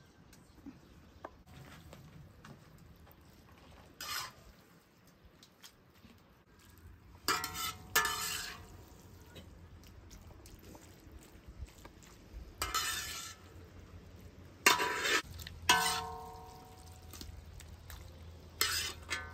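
About seven separate clinks and knocks of hard objects, scattered through a quiet background. A few of them ring briefly with a metallic or ceramic tone.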